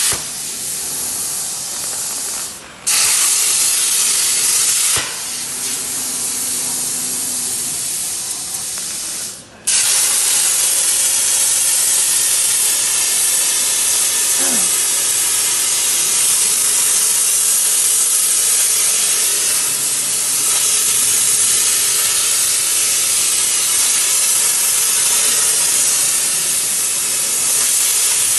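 Hypertherm 105 A plasma cutter torch cutting metal plate on a CNC table: the arc gives a loud, steady hiss. The hiss drops out briefly twice in the first ten seconds and restarts, then runs on unbroken and louder.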